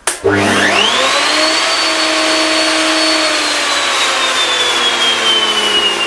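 Table-mounted router with a corner lock cutter switched on: its motor whine climbs to full speed within about a second over a loud rush of air, then slowly sinks in pitch over the last few seconds.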